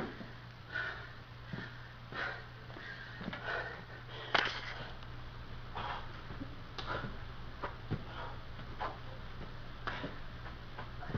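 A man breathing hard and fast as he does burpees, with sharp noisy breaths roughly once a second and the strongest about four seconds in. Light thumps of his hands and feet landing on the carpeted floor come in among the breaths.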